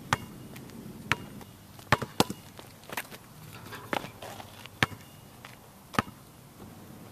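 Basketball bouncing on an outdoor asphalt court: a run of single sharp bounces from dribbling. About four seconds in the ball hits the rim on a dunk, then it bounces twice more on the court.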